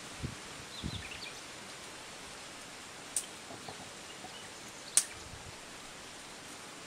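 Quiet rural outdoor ambience with a few faint bird chirps. There are two soft thumps in the first second and two sharp clicks, the second of which, about five seconds in, is the loudest.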